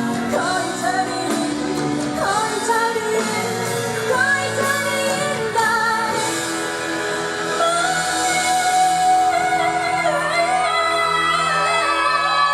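A solo singer performing a song with instrumental backing, with long held notes that waver in vibrato.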